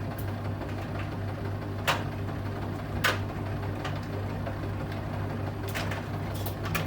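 Bosch Serie 8 front-loading washing machine in its main wash, the drum turning with a steady low hum and a few sharp knocks from the tumbling load, loudest about two and three seconds in.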